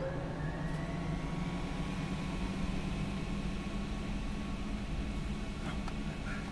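A steady low hum with fainter tones held above it, one of them slowly rising in pitch over the first couple of seconds.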